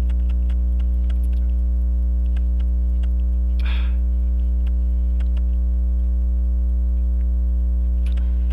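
Steady electrical mains hum with many overtones, over faint scattered small clicks. A short breathy rustle comes about three and a half seconds in.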